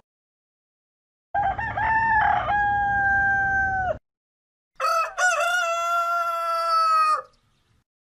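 A rooster crowing twice, each crow lasting about two and a half seconds with a short silence between. The second crow opens with a couple of quick broken notes before it settles.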